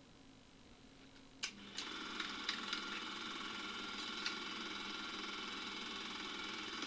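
A faint hum, then a click about a second and a half in as a small machine switches on and runs with a steady whir, with a few sharp ticks in its first few seconds.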